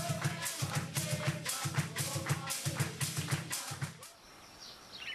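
Percussion music with a fast beat of shaken rattle strokes over a drum, stopping about four seconds in. A faint, steady, high insect drone follows.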